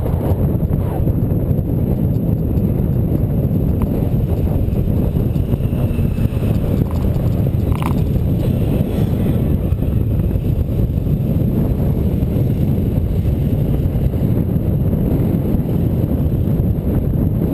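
Steady wind rush and road rumble on the microphone of a bicycle-mounted camera while riding, with a brief high chirp about eight seconds in.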